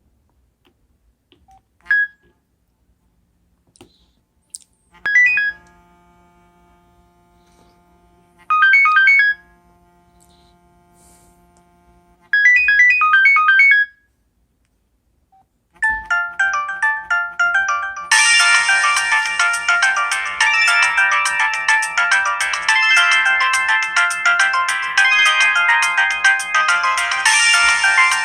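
LG Rhythm AX585 cell phone playing its built-in ringtones. A short tone comes first, then three brief chiming phrases over a held low note. After a short gap a busy melodic ringtone starts about sixteen seconds in and gets fuller about two seconds later.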